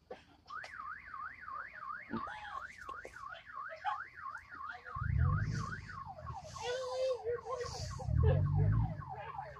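A car alarm sounding: a tone warbling up and down two or three times a second, switching about six seconds in to a quick run of falling chirps. Two low rumbles, around five and eight seconds in, are the loudest sounds.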